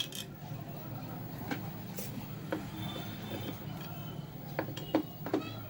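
Scattered clicks and knocks from handling a ceiling fan, over a steady low hum.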